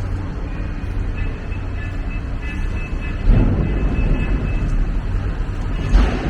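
Street traffic with a streetcar rumbling by. A thin, high-pitched squeal is heard from about half a second in to near five seconds, and two louder rushes of noise come at about three seconds and near the end.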